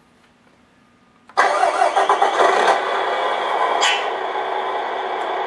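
Tamiya MFC-03 sound unit in a 1/14 RC Volvo FH16 truck playing a simulated diesel truck engine start through its small built-in speaker. The sound comes in suddenly about a second in and settles into a steady idle.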